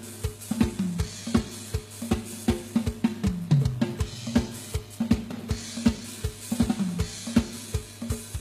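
Instrumental lam sing band music: a drum kit keeps a fast, even beat of about three strokes a second with kick drum, snare and cymbals over a steady low held note, with a few falling pitched notes.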